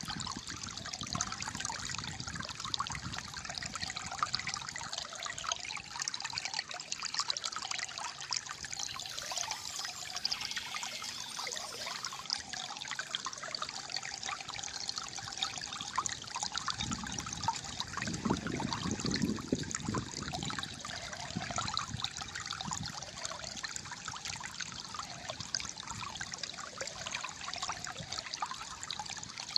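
Calm flowing water trickling and gurgling steadily, with a deeper gurgle for a few seconds about two-thirds of the way through.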